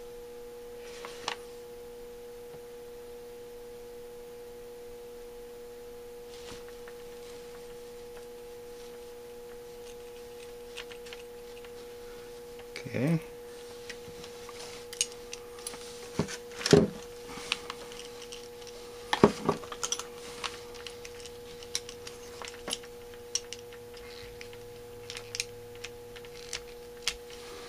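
A steady hum made of several pitches runs throughout. From about halfway, scattered sharp metal clicks and taps as small screws, a nut and a screwdriver are handled on a carburetor choke housing, the loudest two clicks a few seconds apart.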